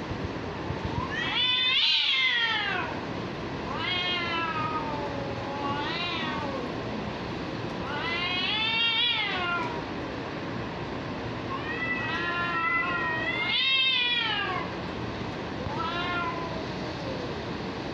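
Cats yowling in a fighting standoff: about seven long, wavering threat yowls that rise and fall in pitch, loudest about two seconds in and again near fourteen seconds.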